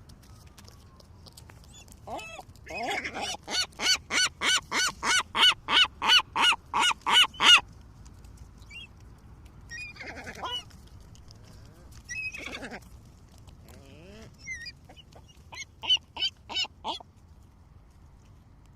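Seagulls calling: a long run of loud, repeated calls at about three a second, then a few single calls and a shorter run of about five calls near the end, over faint low background noise.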